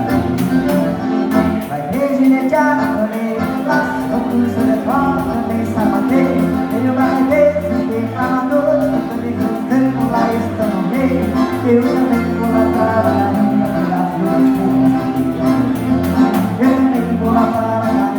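Live gaúcho dance-band music led by a button accordion (gaita), with a steady dance beat and no clear words.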